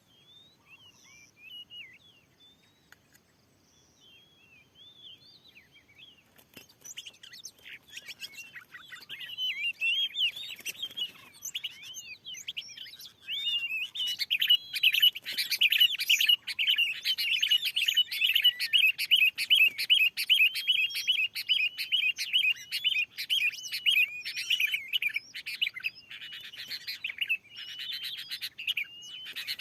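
Oriental magpie-robin song. It starts as a few faint scattered chirps, then from about seven seconds in becomes loud, rapid, near-continuous chattering song that is densest in the second half.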